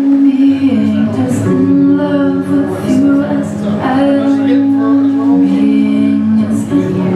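Slow recorded song with a singing voice holding long notes over a sustained accompaniment.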